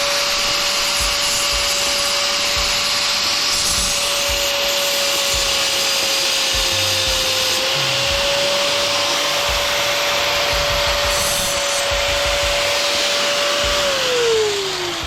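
Electric grinder whining at a steady speed while grinding a piece of scrap for a spark test, to tell stainless steel from brass or cast aluminum. The grinding noise rides over the motor. The pitch dips slightly about halfway in, and about a second before the end the grinder is switched off and its whine falls as it spins down.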